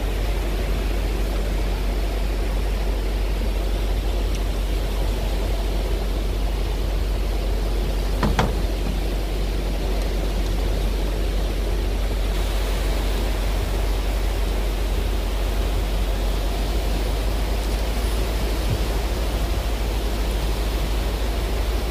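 Steady rush of wind and breaking surf on the beach, with one short knock about eight seconds in.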